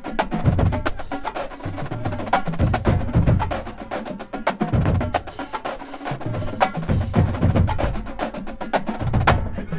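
College marching drumline playing a fast cadence: snares and tenor drums crack out dense rhythms over runs of tuned bass drums that step through several pitches.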